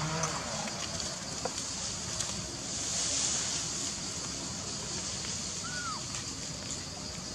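Outdoor forest ambience: a steady hiss with a few faint clicks and one short squeak about six seconds in.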